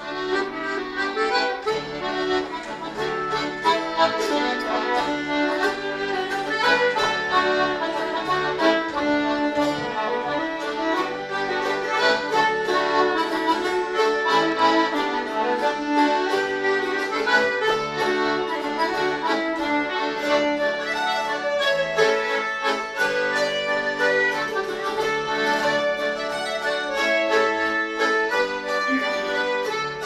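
A small live folk band playing an instrumental tune in a steady, even rhythm.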